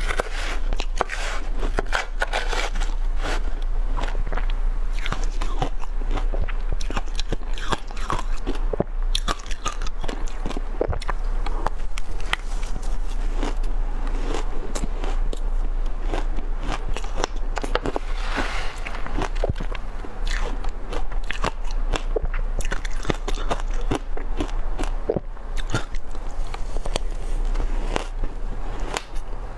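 Mouthfuls of shaved ice crunched and chewed close to the microphone, a dense run of irregular icy cracks and crunches throughout. A metal spoon scrapes and clinks against the glass bowl between bites.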